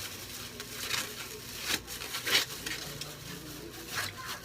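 Kitchen utensil scraping and clinking against dishes, with a few sharper clinks, the loudest near the middle.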